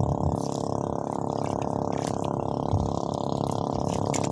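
Water sloshing and dripping around a small outrigger boat at sea, with light clicks and a steady low hum underneath.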